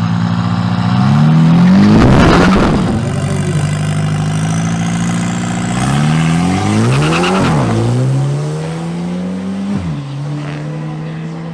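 Drag-racing cars (a BMW M330i and an Audi SQ5) accelerating hard down the strip. The engine pitch climbs, then falls back sharply at gear changes, once about two-thirds of the way through and again near the end, with a loud surge about two seconds in.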